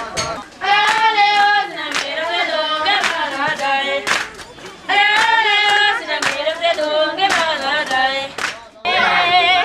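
A group of Tibetan women singing a work song together while their long tamping poles strike the floor in time, about once a second, as they pound an arga floor.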